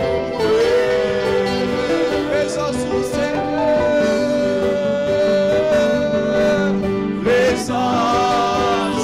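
Gospel hymn sung loudly into a microphone over instrumental accompaniment, with long held notes and a new phrase starting about seven seconds in.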